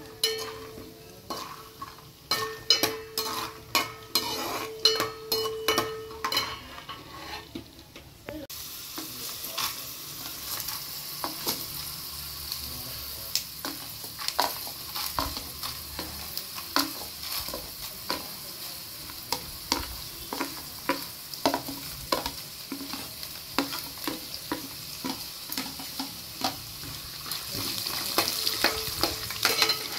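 Slotted metal spatula scraping and tapping against an aluminium pan as peanuts are stirred in oil; the pan rings at each stroke. About eight seconds in, a steady sizzle of the peanuts and split dal frying in hot oil sets in, with the stirring strokes going on over it.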